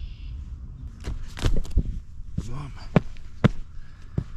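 Boots stepping onto and shifting on a flat stone bedded in loose soil, giving a series of sharp knocks and scuffs, the loudest about one and a half, three and three and a half seconds in. A short grunt-like voice sound comes about halfway.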